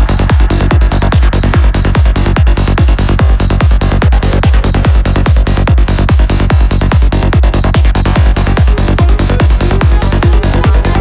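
Progressive psytrance track playing: a steady, even kick drum with a rolling bass line under each beat and synth layers above.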